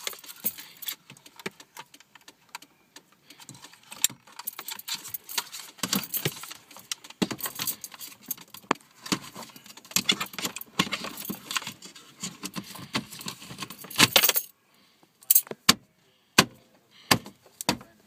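Many sharp clicks and light rattles of plastic dashboard parts being handled and fitted back together, with a dense rattling burst about fourteen seconds in and only a few scattered clicks after it.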